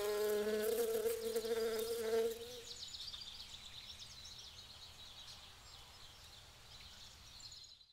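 A bumblebee buzzing in a steady, even tone that drops away about two and a half seconds in. After that only a faint background remains, with faint high chirps.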